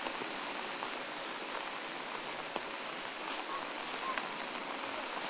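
Steady hiss of falling rain, with a few faint knocks.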